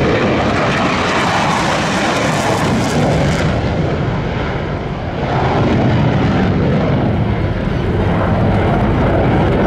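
Dassault Mirage 2000 fighter's single SNECMA M53 jet engine running in afterburner, a loud steady roar that dips briefly about five seconds in and then swells again.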